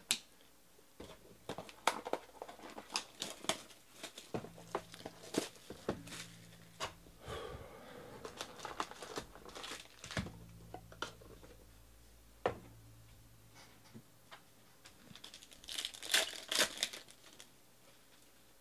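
Trading-card hobby box and its wrapped pack being opened by hand: plastic wrapper crinkling and tearing, with cardboard and cards handled. It comes as a scatter of sharp crackles and snaps, busiest in the middle and in a loud flurry near the end.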